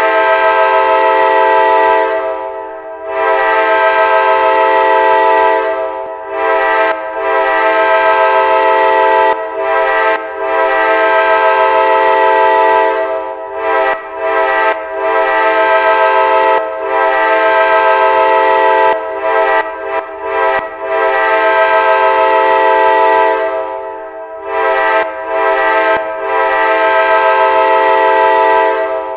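Train horn sounding a chord of several steady notes, blown again and again in a mix of long blasts of two to three seconds and short toots with brief gaps between them.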